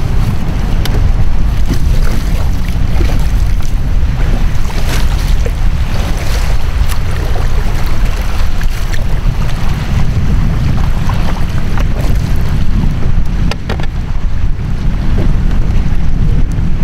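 Loud, steady wind buffeting the microphone, with a few short splashes of a kayak paddle and hull on the water.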